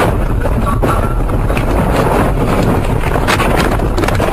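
Car driving on a snowy road: a steady rush of road and wind noise, with a few brief knocks.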